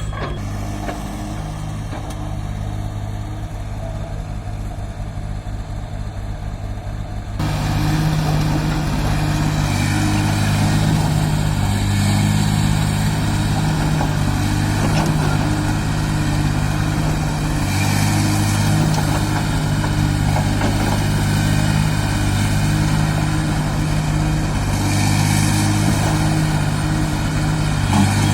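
Excavator's diesel engine running steadily with an even low hum, turning abruptly louder and fuller about seven seconds in.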